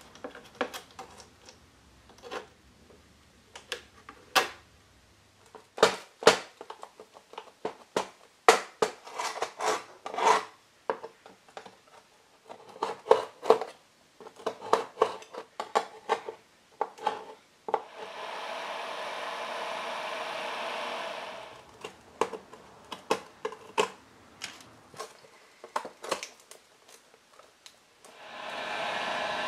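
Sharp scrapes, clicks and small clinks of a chisel working hard old glazing putty out of a glazed door's wooden mullion joints, with pieces of broken pane glass being handled. Twice a heat gun runs for a few seconds with a steady blowing whir, softening the hard putty: about two thirds of the way in and again near the end.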